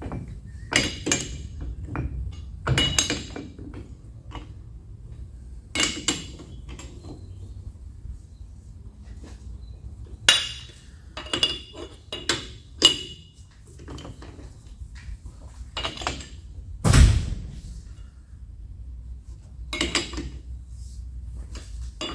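Steel tools and round bar stock being handled and set down: a series of irregular metallic clinks and knocks, some ringing briefly. A heavier thud comes about two-thirds of the way through.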